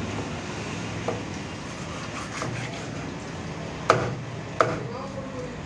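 Long knife chopping through shark meat into a wooden cutting block: a light knock about a second in, then two sharp chops near the end. A steady low hum runs underneath.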